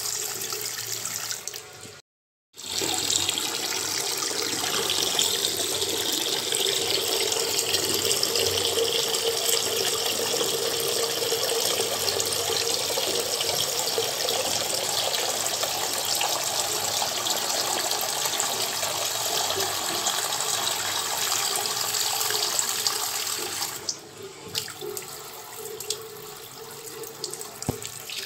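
A steady rushing hiss, cut off completely for a moment about two seconds in and quieter for the last few seconds.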